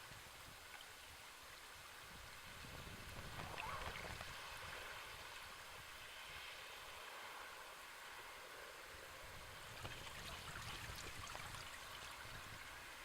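Faint sea waves washing in, a steady rush of water that swells twice, about four seconds in and again about ten seconds in.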